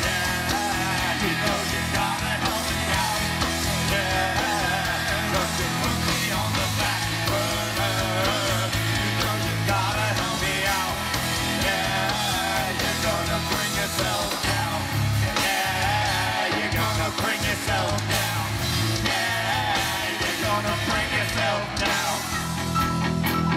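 Live rock band playing a rock song loudly and without a break.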